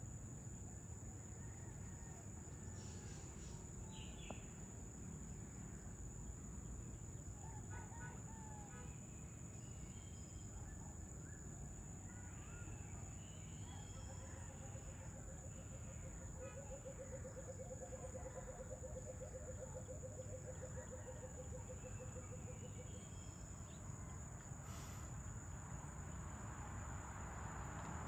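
Dusk ambience of insects and birds: a steady, high-pitched insect drone such as crickets, with scattered short bird chirps and, about halfway through, a long low pulsing trill lasting several seconds, over a faint low rumble.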